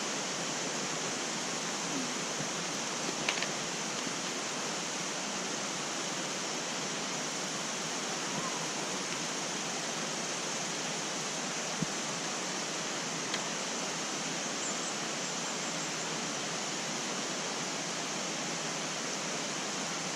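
Steady rushing of a mountain stream, an even hiss of running water, with a few faint clicks.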